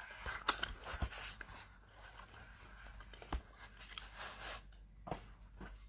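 Faint handling noise close to a phone's microphone: soft rustling with scattered light clicks and taps.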